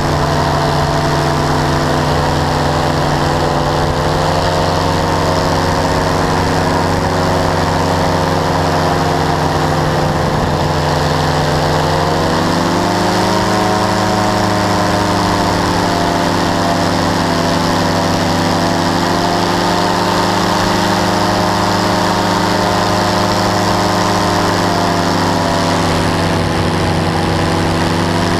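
Powered parachute's engine and propeller running steadily in flight, loud and close. About twelve seconds in the engine speeds up and the pitch steps higher, then eases slightly near the end.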